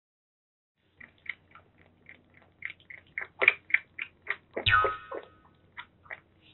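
Kitten suckling milk from a feeding bottle: a steady run of short wet sucking clicks, about three or four a second, starting about a second in. A brief kitten cry breaks in just past the middle.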